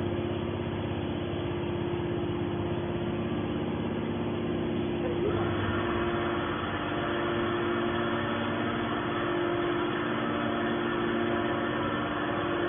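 Hydraulic scrap metal baler running: a steady mechanical hum with several held tones, growing fuller with more high-pitched noise about five seconds in.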